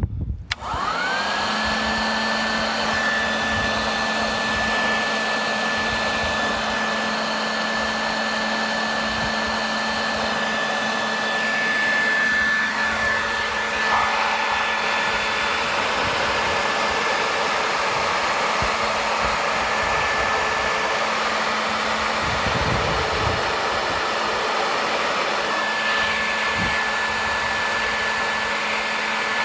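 A blower motor starts about half a second in, whines up to full speed and then runs steadily with a rushing blast of air, driving a sustained 150 mph wind for the test. A couple of brief knocks come through the air noise.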